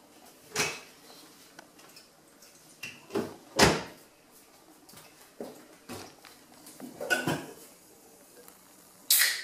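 Clunks and knocks of kitchen doors and a drink can being fetched and set down on a stone countertop, then, about nine seconds in, the sharp crack and short hiss of the can's ring-pull being opened.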